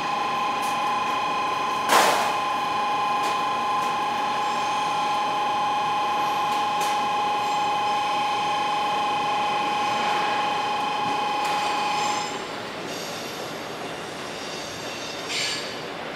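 Train noise in a station: a steady, high two-note squeal or whine with a sharp clack about two seconds in. The squeal cuts off about twelve seconds in, leaving a quieter rumble of rail traffic with a short screech near the end.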